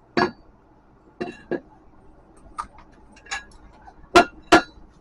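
Irregular sharp metallic taps and clinks, about seven of them, from metal tools and steel workpiece being handled at the welding bench, the two loudest close together near the end.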